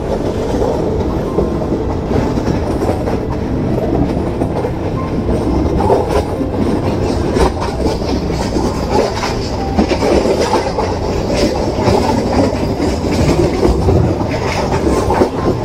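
Metre gauge passenger train running, heard from a coach window: a steady rumble of wheels on the track with repeated clicks and clacks at the rail joints.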